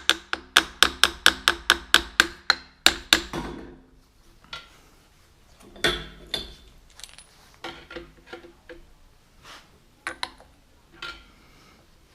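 Hammer striking metal in quick even blows, about four a second, each with a short metallic ring, stopping about three and a half seconds in; after that, scattered lighter clinks and knocks of tools and parts being handled.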